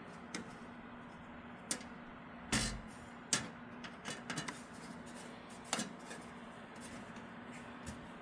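Scattered light metallic clicks and taps of the PC case's mounting screws being tightened and the hardware handled, with one heavier knock about two and a half seconds in.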